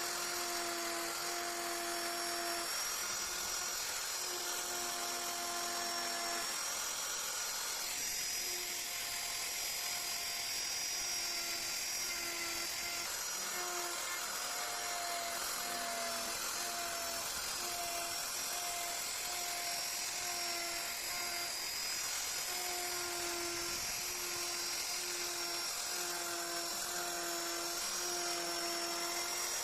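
Handheld high-speed power tool cutting wood, running continuously with a steady whine. Lower tones in it break off and return every second or so as the load changes.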